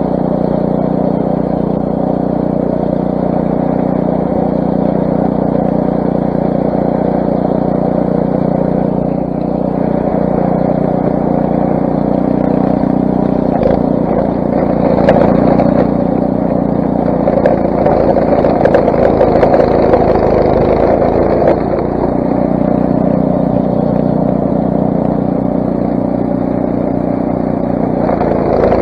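Craftsman snowblower's 6 hp Briggs & Stratton single-cylinder engine running steadily under load, with a louder, rougher stretch of churning in the middle.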